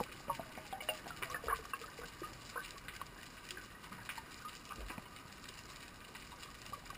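Underwater sound through a diver's camera: a scatter of small gurgling bubble blips and faint clicks over a low hiss. It is busiest in the first few seconds and then thins to sparse clicking.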